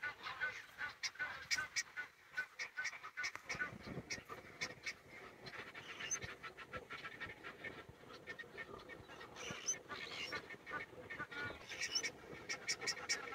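Birds calling in a rapid series of short, repeated notes, with a few louder bursts.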